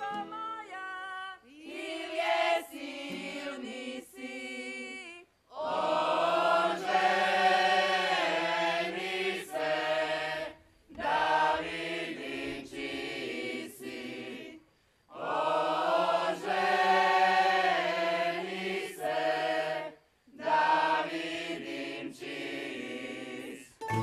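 Group of folk singers singing unaccompanied in several voices, in phrases of four to five seconds with short pauses for breath between them.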